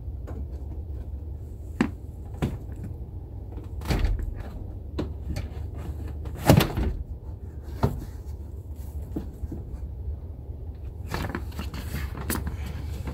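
Scattered clicks and knocks of the headliner and plastic trim in a pickup cab being worked loose from their fastenings, with one louder knock about six and a half seconds in and a run of clicks near the end, over a steady low hum.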